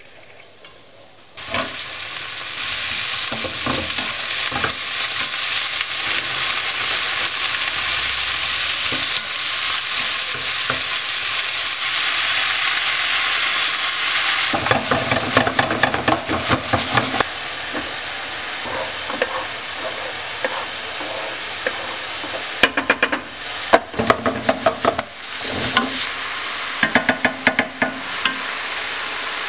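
Stir-fry vegetables sizzling loudly in a hot wok, the sizzle starting abruptly about a second and a half in. From about halfway a wooden spoon stirs them round the pan, with a run of quick knocks and scrapes near the end.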